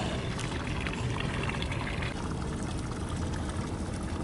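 Water splashing and trickling at a boat's side as a striped bass held by the jaw is lowered into the water and let go, louder in the first couple of seconds and then settling to a softer wash.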